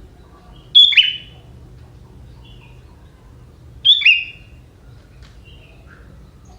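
Young wild sooty-headed bulbul giving two loud, sharp calls about three seconds apart, each a quick pair of falling notes, with fainter short chirps between them.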